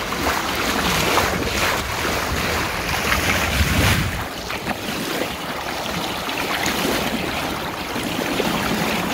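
Water rushing and splashing along the bow of a cruising cabin cruiser as it cuts through the water, with wind buffeting the microphone; a steady rushing noise.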